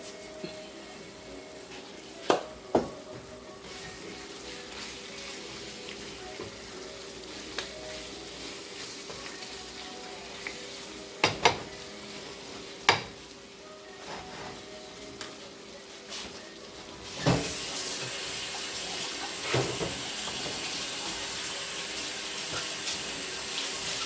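Chicken and vegetables frying in a pan with a soft sizzle, a metal spoon clinking against the pan a few times. About seventeen seconds in, a louder steady rush of water from a kitchen tap begins and keeps running.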